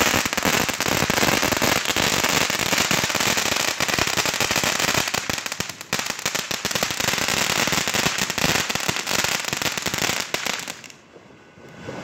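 Ground fountain fireworks spraying sparks with a dense, rapid crackling, briefly thinning around six seconds in and dropping away sharply about a second before the end.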